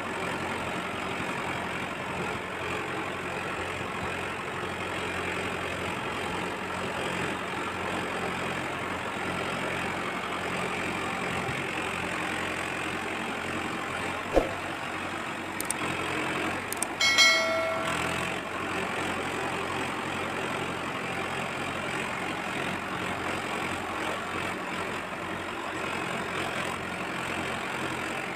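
Tractor engine idling steadily throughout. About halfway through there is a single sharp knock, and soon after it a short, high beep lasting under a second.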